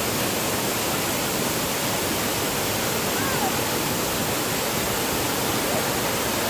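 Benang Kelambu waterfall: a steady, even rush of falling water that does not change.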